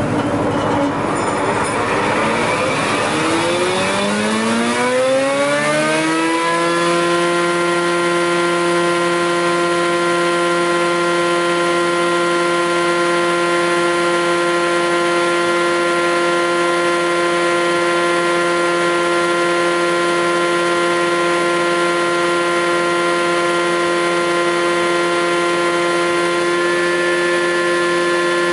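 TOS Svitavy F2T-80 double-sided planer started up and running with no wood fed: the cutterheads and motors wind up with a rising whine over about six seconds. They then run steadily at full speed, a constant whine.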